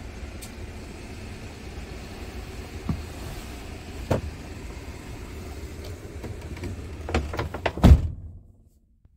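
Scania R410's 13-litre inline-six diesel idling, a steady low hum heard inside the cab. A few sharp clicks and knocks sound over it, a quick cluster of them about seven to eight seconds in, and then the sound stops abruptly.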